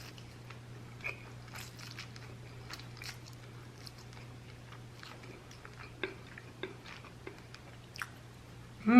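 Close-miked eating: a person chewing a mouthful of fried instant noodles and chicken, with many small wet clicks and smacks of the lips and mouth, over a faint steady hum. A short voice sound with falling pitch comes at the very end.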